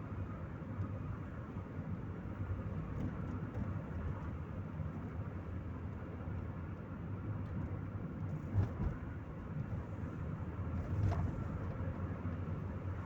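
Chevrolet Corsa Maxx driving, heard from inside the cabin: a steady low rumble of engine and road noise, with a brief thump a little past halfway and another near the end.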